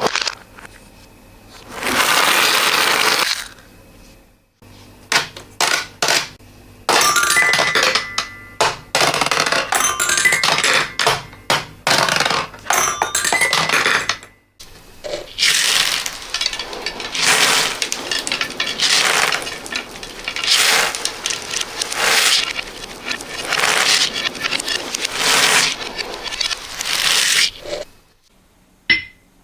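Many small hard beads and marbles clattering and clinking together in repeated surges, played backwards, with a few short ringing notes partway through.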